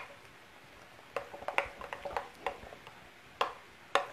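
A utensil stirring thick ricotta dip in a glass bowl, clinking and tapping against the glass in irregular light taps that begin about a second in, with a couple of sharper clinks near the end.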